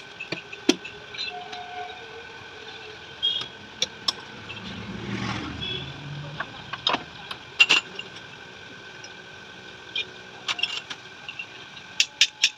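Metal clinks and knocks from tools and parts during work on a motorcycle rear shock absorber, scattered at first, then a quick run of taps, about four or five a second, near the end, over a faint steady workshop hum.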